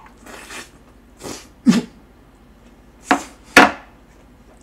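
Close-up mouth sounds of a person eating a big mouthful of fried rice: a handful of short, loud smacking and chewing noises with breathy gulps, the loudest two near the end.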